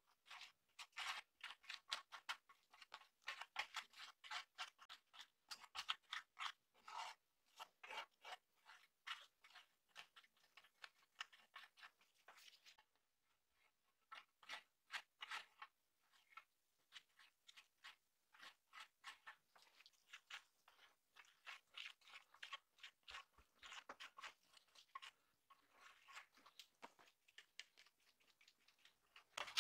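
A plastic card scraping across a rusty steel shovel blade, spreading a grey paste in quick, short, faint strokes, with a short pause a little before halfway.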